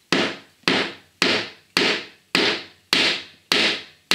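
Hammer knocking a glue-coated wooden wedge up under a pine stair tread to tighten it: evenly spaced, sharp blows, about two a second, each dying away before the next.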